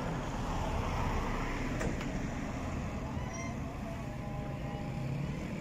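Steady low outdoor background rumble, with a few faint short high chirps about three seconds in.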